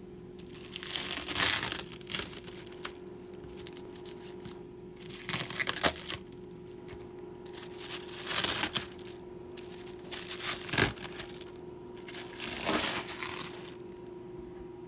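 Thin plastic sheeting crinkling in about five bursts as a hand handles it and peels it back, over a steady low hum.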